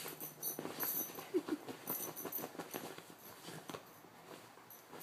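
A small dog's paws scratching and digging fast at a fabric duvet, an irregular scuffing that thins out briefly near the end. There is a short squeak about a second and a half in.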